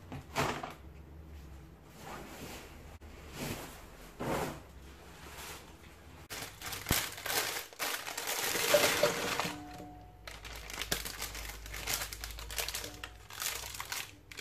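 Plastic salad-bag packaging crinkling in repeated bursts. The loudest stretch, about halfway through, is the bagged Caesar salad being shaken out into a stainless steel bowl; smaller rustling of a kit packet follows near the end.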